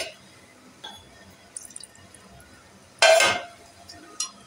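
Metal utensils clinking and knocking against a pressure cooker, then about three seconds in a short splash of masala-rinse water poured into the meat in the cooker, the loudest sound; one more clink near the end.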